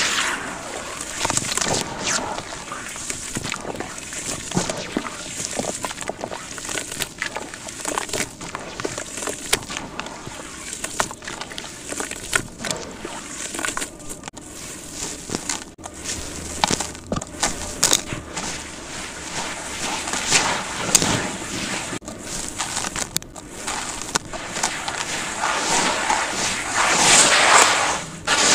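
Sand-cement chunks crumbling and being crushed by hand: a dense run of gritty crackles and sharp crunches, with a louder stretch of crunching near the end.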